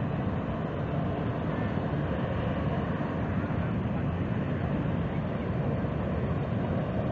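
Falcon fighter jet's engine running with a steady, unchanging noise.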